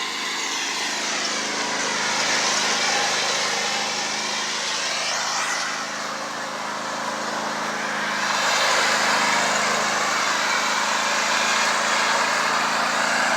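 Riding lawnmower engine running steadily as the mower is driven, swelling louder and dropping back a few times.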